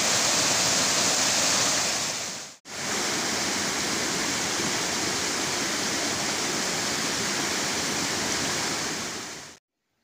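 Mountain stream rushing over rocks in small cascades and waterfalls, a steady rush of water. It breaks off briefly about two and a half seconds in, resumes, and fades out near the end.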